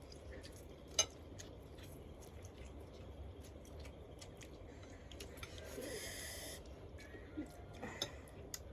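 People eating very spicy instant noodles: faint chewing and small clicks, with one sharp click about a second in. Short hissing sounds from the mouth come around six seconds in and again near the end, typical of sucking air against the chilli burn.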